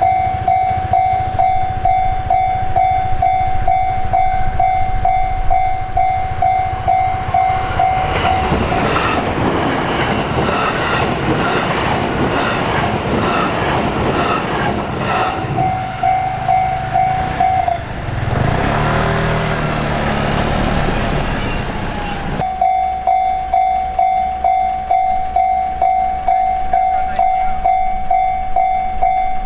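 A Japanese level-crossing alarm bell rings steadily, about two strikes a second. About 8 s in, an electric commuter train rolls through the crossing, and its wheels clattering over the rails largely drown the bell until about 22 s. After that the bell rings on alone.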